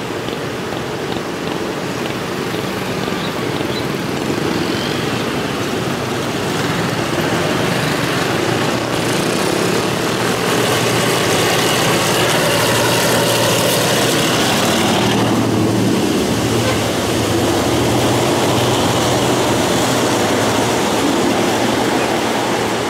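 Diesel locomotive hauling a passenger train, its engine running steadily and growing louder as it approaches and passes close by, with the passenger carriages rolling past near the end.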